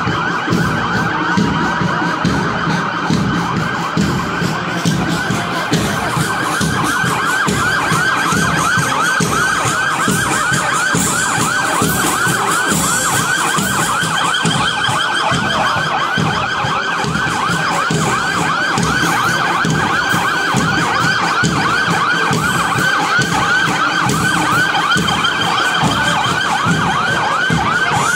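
Sirens of several Military Police patrol cars driving past, a fast rising-and-falling yelp from overlapping sirens, sounding continuously.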